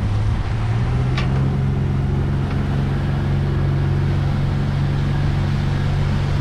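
A boat's outboard motor runs underway with a steady low hum. Its pitch steps up slightly about a second in, then holds steady over a hiss of rushing water and wind.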